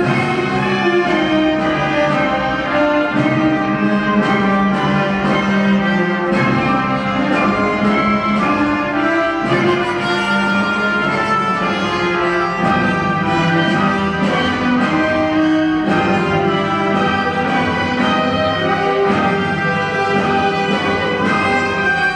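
Orchestral ballet music, brass and bowed strings playing held notes and chords that change every second or two.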